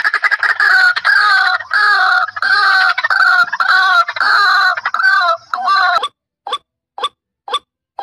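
White-breasted waterhen calling: a fast, unbroken run of loud repeated notes for about six seconds, then short single notes about twice a second.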